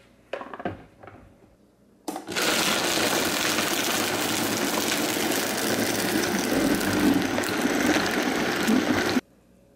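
A few light knocks as the lid goes on the jar, then about two seconds in a Vitamix blender starts and runs loud and steady for about seven seconds, blending ice, frozen berries and greens into a smoothie, before cutting off suddenly.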